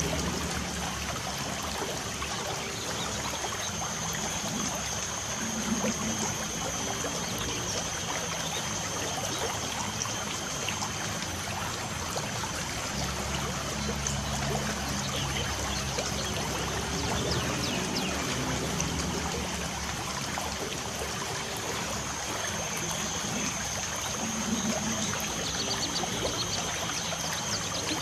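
Light rain falling steadily, an even trickling wash of water noise. A thin, steady high tone runs underneath, and a few faint bird chirps come near the end.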